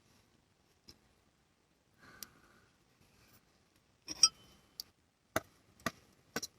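A series of short, sharp metal clicks and clinks, like cutlery tapping against a metal camp pot while food is served or eaten. The loudest clink comes about four seconds in with a brief ring, followed by lighter clicks roughly two a second.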